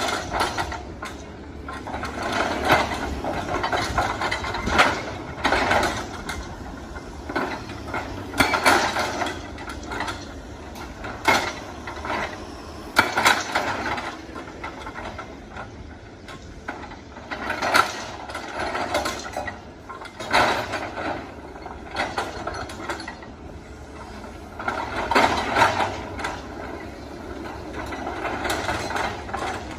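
Excavator-mounted hydraulic breaker hammering on rock: repeated bursts of rapid blows, each a second or two long, with short pauses between, over the steady hum of the SANY excavator's engine.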